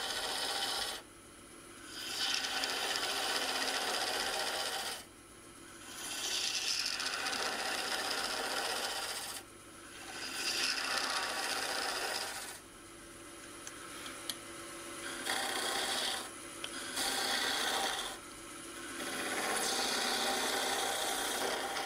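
A gouge cutting a spinning yew blank on a wood lathe, shaping the neck of a small vase. It is a rushing cut in a series of passes a few seconds long, with brief breaks between them while the lathe keeps running.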